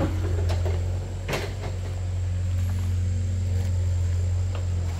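Excavator's diesel engine running steadily, a low even drone, with a sharp knock about a second in and a fainter one near the end.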